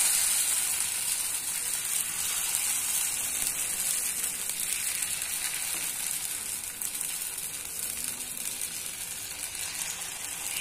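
Pancake batter sizzling in a hot, oiled frying pan as it is spread out: a steady high hiss that slowly grows quieter.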